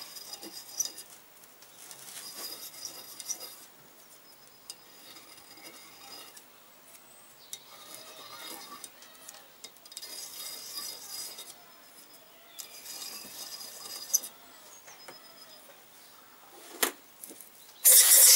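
Hand deburring tool scraping burrs off the top face of a Kawasaki 500 parallel-twin's aluminium cylinder block, in short spells of light metallic scraping with pauses between, so the block will seat better; a single knock comes shortly before the end. Right at the end an aerosol cleaner can starts spraying with a loud steady hiss.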